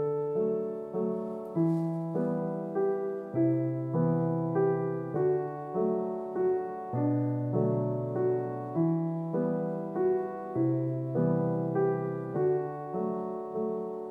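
Background piano music: a gentle melody of separate notes, each struck and fading, over low chords.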